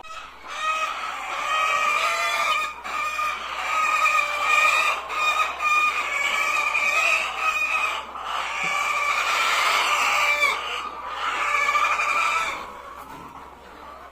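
A large flock of chickens in a poultry house, many birds clucking and calling over one another. The noise dies down near the end.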